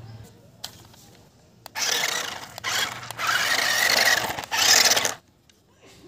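Toyshine remote-control stunt car's electric drive motors and plastic gearboxes whirring in four short bursts as it is driven in spurts, with a whine rising and falling in the longest burst. The bursts begin about two seconds in and cut off abruptly about a second before the end.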